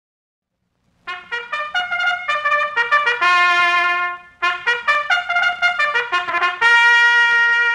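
Trumpet fanfare opening a 1940s radio program. After about a second of silence, quick repeated notes climb to a held note and break off. A second run of quick notes then ends on a long held note.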